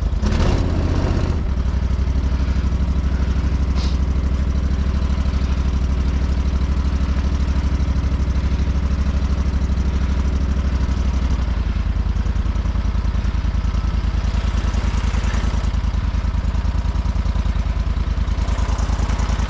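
Small boat motor running steadily at low speed, its note changing about eleven seconds in.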